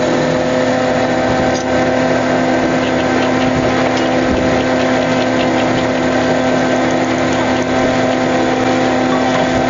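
A fishing boat's engine and deck machinery running with a steady, unchanging drone, with a few light knocks over it.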